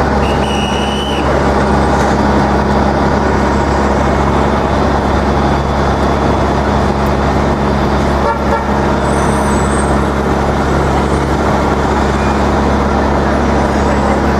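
Steady low drone of engines and machinery around a city construction site and street, holding level throughout, with one short high beep under a second in.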